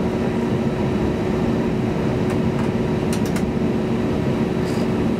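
Steady cabin noise of a jet airliner taxiing after landing, its engines at idle and the air conditioning running, with a steady low hum and a few light clicks in the middle.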